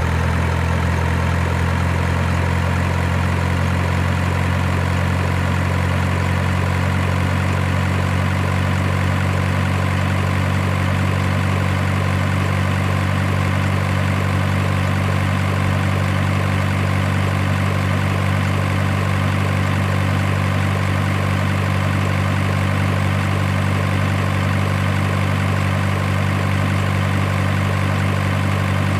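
Steady idling truck-engine drone, low and unchanging for the whole stretch, as played for a convoy of RC model trucks.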